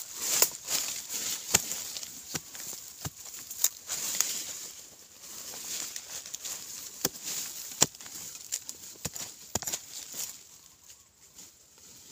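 Digging in dry, crumbly soil: irregular knocks and scrapes of a digging tool striking and loosening the earth, about one or two a second, dying down near the end.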